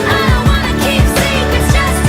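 Pop music with a steady beat and a sung vocal line.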